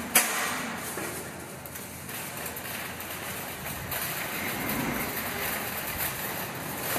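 A shopping cart gives a sharp knock as it is pulled free of the row of carts just after the start. Its wheels then rattle steadily as it rolls over the pavement, growing a little louder in the second half.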